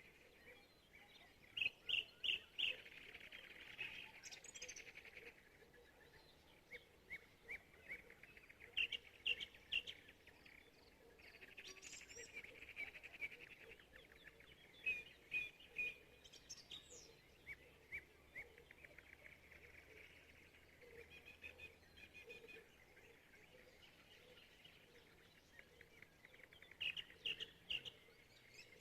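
Small birds calling in the evening. Loud short notes come in quick groups of about four, repeated every several seconds, between softer rapid trills.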